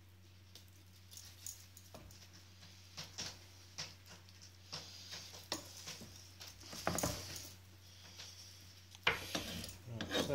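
Knife scraping and tapping on a wooden chopping board while raw chicken wings are cut off the bone: irregular small clicks and scrapes, a louder cluster about seven seconds in and a sharp knock about nine seconds in.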